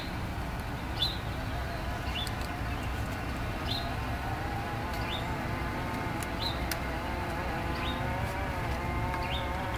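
Outdoor ambience over a low steady rumble: a bird gives short falling chirps about once a second, and a wavering buzz, like an insect in flight, grows stronger about halfway through. A few sharp clicks sound, the loudest about a second in.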